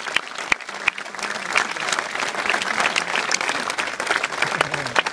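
Crowd applauding, a dense patter of many hands clapping.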